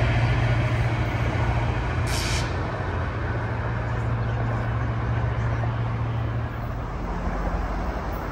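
GO Transit train's diesel locomotive running with a steady low hum that fades after about six and a half seconds. A short hiss of air sounds about two seconds in.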